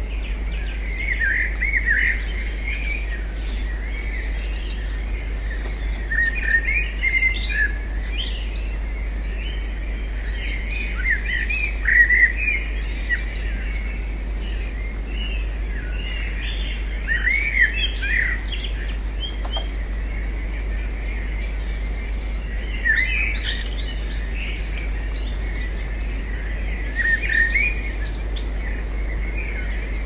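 Small songbirds chirping and calling over and over: quick rising and falling chirps and short notes come in clusters every few seconds. Under them runs a steady high background hiss and a low hum.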